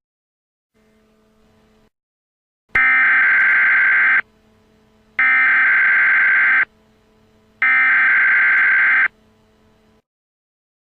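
Emergency Alert System end-of-message SAME data bursts: three loud buzzy digital bursts of about a second and a half each, a second apart, over a faint steady hum.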